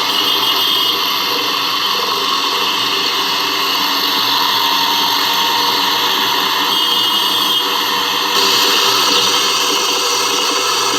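Loud, steady mechanical noise with some faint steady tones in it, growing louder and brighter abruptly about eight seconds in.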